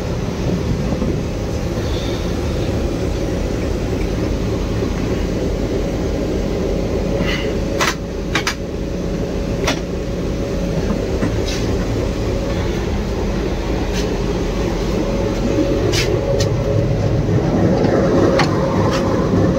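Diesel-electric locomotive engine running steadily, heard in the cab as a continuous rumble with a steady hum. A few short sharp clicks come now and then from the middle onward.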